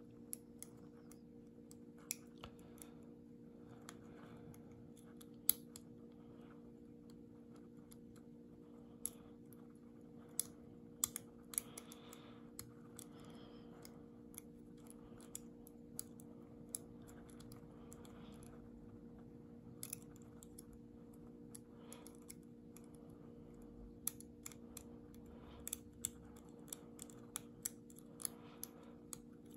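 Faint, irregular metallic clicks and scrapes of a lock pick and tension wrench working the pins inside a Lockwood pin-tumbler padlock, over a steady low hum.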